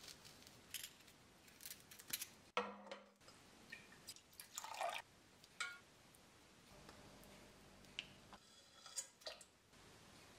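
Faint, scattered kitchen handling sounds: a Y-peeler scraping a strip of skin off a lemon, then a few soft knocks and a small wet drip-and-splash as the lemon peel is dropped into a stainless pot of milk. A faint low hum sets in about two-thirds of the way through.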